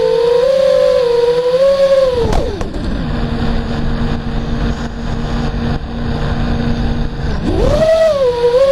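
Small quadcopter's electric motors and propellers whining in flight, the pitch wavering with throttle, then dropping sharply about two seconds in as it comes down onto the road. For several seconds the motors only hum low and steady at idle, then the whine rises again near the end as it throttles up and lifts off.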